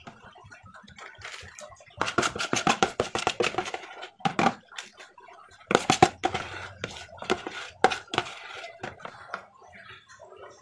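A metal spoon scraping and knocking against the inside of a plastic bowl, scooping out thick bait dough. It comes in two runs of quick strokes, about two seconds in and again around six seconds, with lighter scrapes in between.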